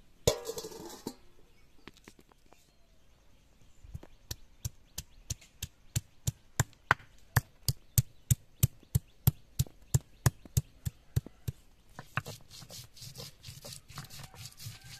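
A knob of fresh ginger grated by rubbing it on a wet stone grinding slab: about three sharp scrapes a second for several seconds, then a steadier rough rubbing near the end. A short loud noise opens it.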